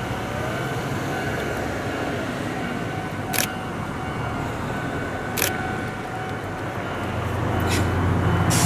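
Two stationary electric commuter trains of the Ohmi Railway humming steadily at a station, broken by two sharp clicks and a fainter one. About seven seconds in, a deeper, louder hum builds up.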